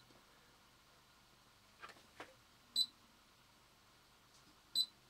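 Short high key beeps from a Hantek DSO2C10 digital oscilloscope as its front-panel buttons are pressed: two beeps, a little past halfway and near the end, with a couple of soft button clicks just before the first.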